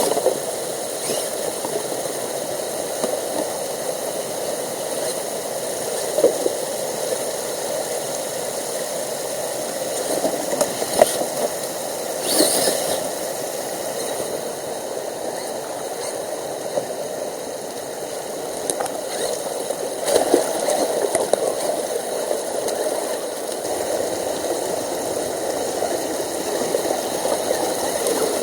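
Stream water rushing steadily, with a few brief clatters on top about a third of the way in and again later.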